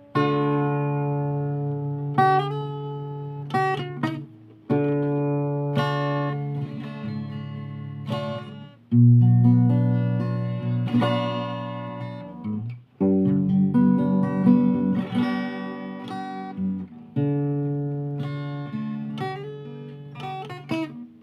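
Acoustic guitar playing chords, a new chord struck every few seconds and left to ring and fade, as an instrumental intro with no singing yet.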